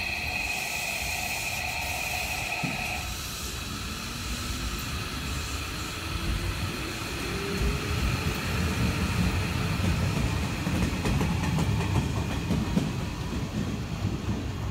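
A Hanshin 5700 series train pulling out of the station, with a steady high tone that stops about three seconds in. Then its Toshiba IGBT VVVF inverter and permanent-magnet synchronous motors give a whine that rises in pitch as it accelerates, under a growing rumble of wheels on the rails.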